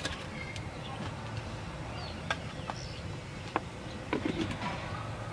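A few light clicks and taps of a metal spoon against a plastic cup and dishes, over a steady low rumble of background noise.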